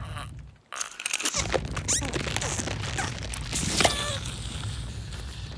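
Cartoon sound effects: a busy run of crunches, clicks and short squeaky glides over a low rumble, with a sharp hit a little under four seconds in.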